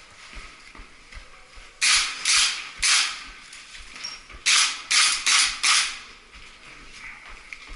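Footsteps crunching on dry ground at a walking pace: three steps, a short pause, then four more.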